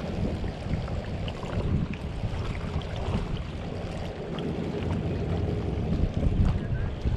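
Wind buffeting the microphone as a rough, uneven low rumble, with water sounds beneath it.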